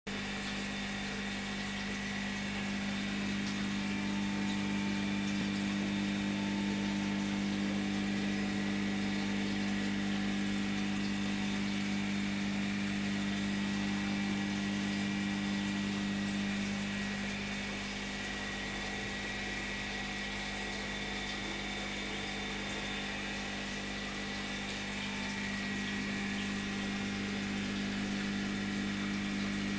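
Steady hum of a large aquarium's water pump, a low even drone over a faint rush of circulating water, easing off slightly for several seconds past the middle.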